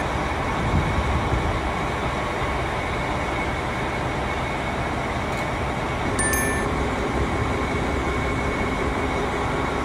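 Passenger train running, a steady rumble and rushing noise.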